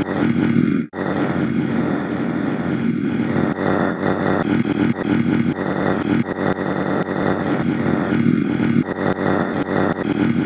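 Eating sound effect: loud, continuous low chewing and munching with a dense crackle of small crunches, broken off briefly about a second in.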